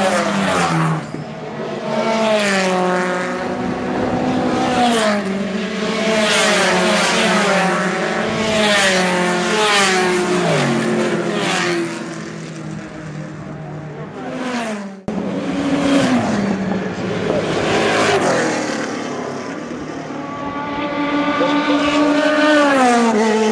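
Race cars, touring cars and prototypes, passing at speed one after another down the straight. Each engine note climbs as the car accelerates and then drops in pitch as it goes by.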